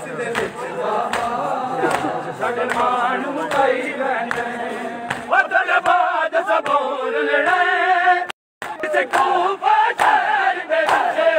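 Large crowd of men chanting a Punjabi noha in unison, with sharp rhythmic hand slaps of matam chest-beating about twice a second. The sound cuts out completely for a moment about eight seconds in.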